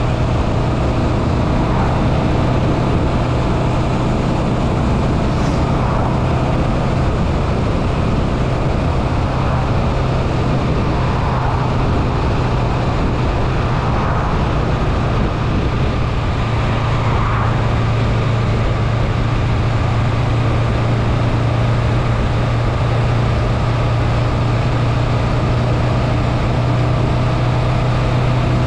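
Honda Rebel 500's parallel-twin engine running at a steady cruise, a low even hum under wind and road noise; the hum grows a little stronger about halfway through.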